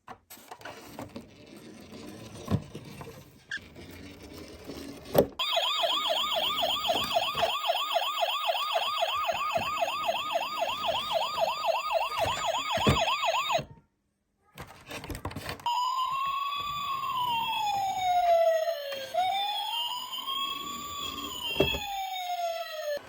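A toy ambulance minicar's electronic siren. After a few seconds of faint knocks, it sounds a fast warbling yelp for about eight seconds, falls silent briefly, then switches to a slow wail that rises and falls every few seconds.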